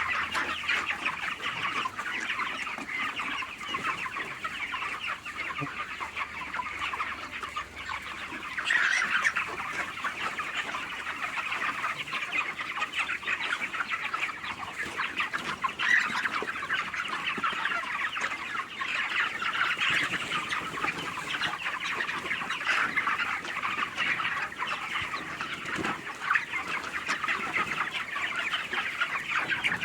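A large flock of farmed chickens calling all at once, a dense, unbroken chorus of many overlapping voices with an occasional louder call standing out.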